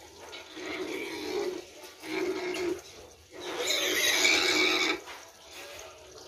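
Piglets feeding at a pan of wet feed: several short grunts, then one louder squeal lasting about a second and a half near the middle.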